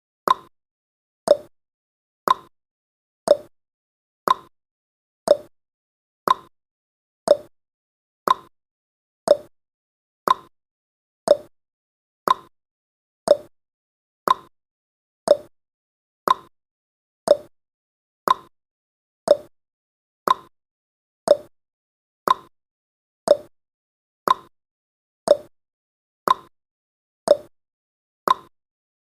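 Clock-tick sound effect of a countdown timer: short, sharp ticks, one each second, evenly spaced.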